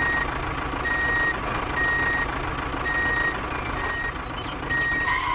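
Vehicle reversing alarm beeping steadily about once a second, each beep a short single tone, over a continuous rumbling machine noise.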